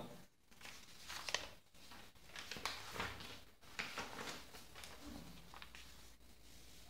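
Paper rustling and sliding as a sheet of notes is handled and turned over, in several short rustles that fade out about two-thirds of the way through.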